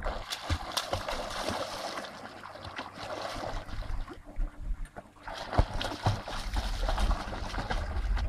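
Water splashing and churning as swimmers kick with fins and a small dog paddles beside them. The splashing eases briefly about four seconds in, then comes back with a sharp, louder splash.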